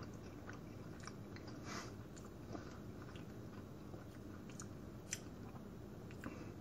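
A man chewing a bite of buttered almond flour bread: faint, irregular mouth clicks and small wet sounds.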